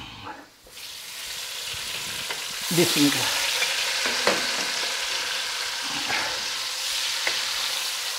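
Chopped tomatoes sizzling in hot ghee in a kadai, stirred with a wooden spatula. The sizzle starts about a second in and grows louder over the next two seconds, then runs steadily, with a few knocks of the spatula against the pan.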